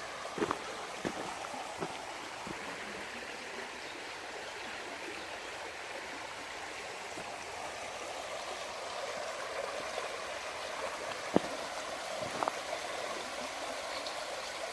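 A small stream running with a steady rushing, broken by a few short sharp clicks near the start and again about eleven and twelve seconds in.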